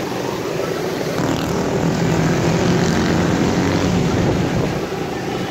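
Steady drone of a vehicle engine with road and tyre noise, heard from inside a moving vehicle on a wet road.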